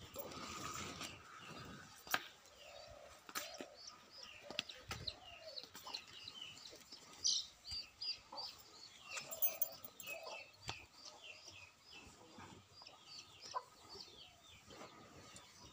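Birds chirping over and over in short high calls, with a few lower calls and several sharp knocks.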